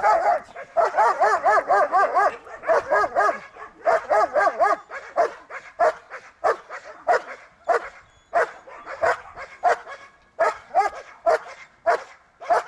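German shepherd dog barking repeatedly and insistently at a helper hidden in a training blind: the hold-and-bark (bark-out) exercise of protection training. The barks come in quick runs of about four a second at first, then as more spaced single barks.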